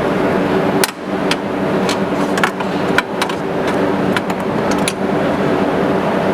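Steady vehicle engine and road drone, heard inside a car, with a few sharp clicks and knocks over it.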